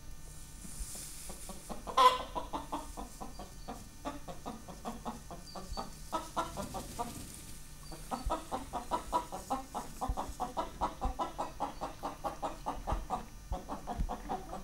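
Hen clucking in fast runs of short clucks, about six a second. The runs open with a sharp, loud squawk about two seconds in and pause briefly near the middle.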